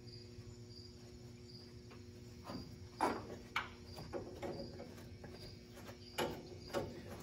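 Sharp metallic clinks and knocks of hand tools on A/C hose flare fittings being threaded together, starting about two and a half seconds in and loudest about three seconds in. Underneath is a steady low hum and a faint, regular high chirp about twice a second.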